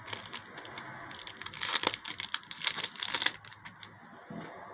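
Baseball card pack wrapper being torn open and crinkled, a dense crackling that stops about three seconds in.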